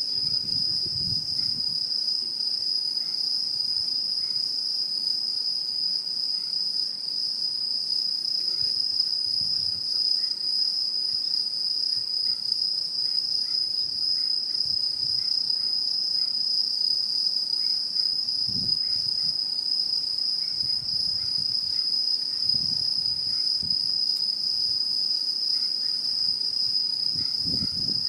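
Autumn insects calling steadily in a continuous high-pitched trill, with fainter, higher trills from other insects behind it.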